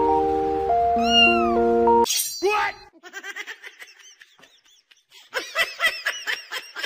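Cat meowing: one loud, falling meow, then a quick run of short, high mews and chirps that grows louder near the end. Background music plays at first and cuts off abruptly about two seconds in, just before the first meow.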